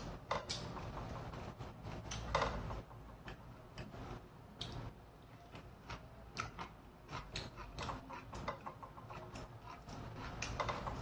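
Pork and enoki mushrooms frying in a pan, the fat crackling with many irregular sharp pops, with eating sounds at times.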